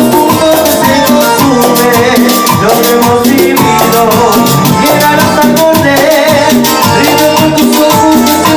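Salsa music playing loudly, with a steady percussion beat under melody lines.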